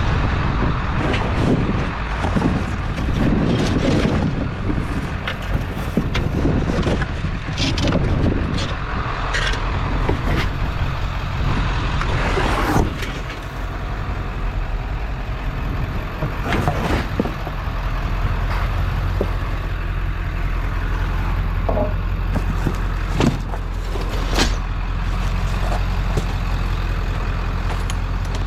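Truck engine running steadily, with scattered clanks and rattles over it.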